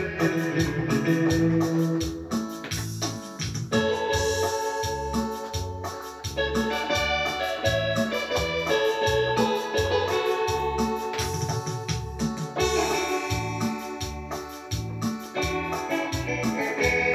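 Arranger keyboard played by hand: organ-like chords and melody over the keyboard's own accompaniment rhythm, with a steady repeating bass and drum beat.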